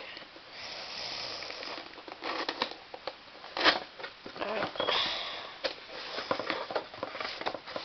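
A stiff cardboard mailer box being pried open by hand: cardboard flaps scraping and rubbing, with several sharp clicks and snaps as the tucked flap resists.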